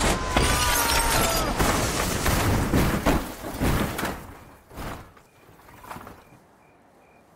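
1999 Jeep Grand Cherokee crashing: a dense run of impacts, crunching metal and shattering glass for about four seconds, with a screeching scrape in the first second and a half. It then dies away to near quiet.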